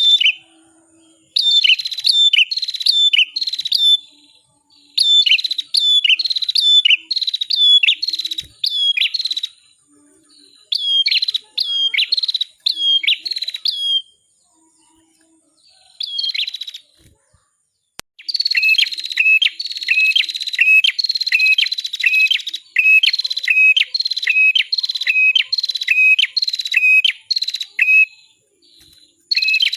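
A red-headed prenjak (cimblek kepala merah) singing loud, sharp repeated notes, each dropping in pitch. In the first half they come in short quick phrases. After a pause of a few seconds midway comes a long unbroken string of the same note repeated about twice a second.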